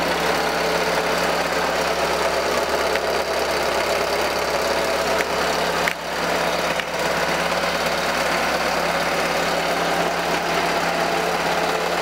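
Chevrolet Celta engine idling together with an engine-driven air-suspension compressor running steadily. The noise sounds like an engine fault but comes from the suspension compressor, not the engine.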